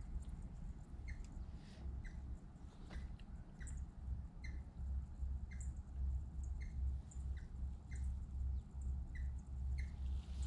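A small bird giving short, high chirps, about one every half second to a second, over a steady low rumble.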